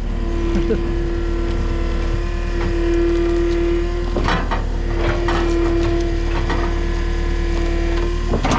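Skid steer engine running under load with a steady high hydraulic whine as the loader lifts a heavy log. The whine breaks off briefly about four seconds in and stops shortly before the end.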